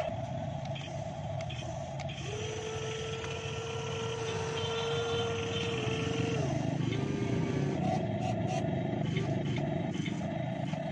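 Motors and gears of a radio-controlled model Kobelco SK200 excavator running as it works its boom and bucket. A steady electric whine holds one pitch from about two seconds in, then drops to a lower whine around the middle and carries on.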